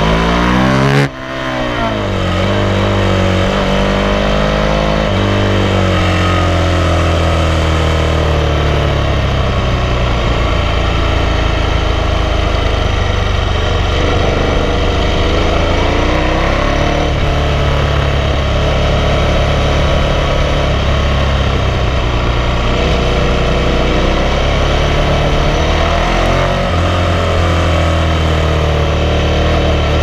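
KTM 1190 Adventure's V-twin engine running under way on a twisty road, revs rising and falling through the bends, with a brief drop about a second in.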